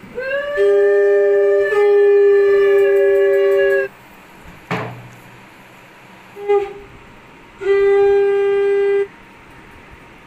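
Conch shell (shankha) blown as the auspicious call of a Hindu blessing ritual: a long blast held on one steady note for nearly four seconds, a brief toot midway, then a second blast of about a second and a half near the end.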